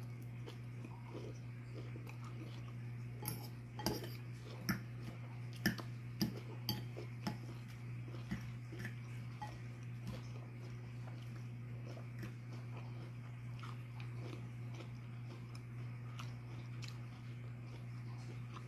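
Chewing and crunching of salad greens and chicken, with a metal fork clicking and scraping in a bowl; a run of sharper clicks comes about four to seven seconds in, over a steady low hum.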